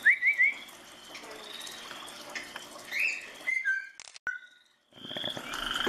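Parrot giving three quick rising chirps, then a few short whistled notes.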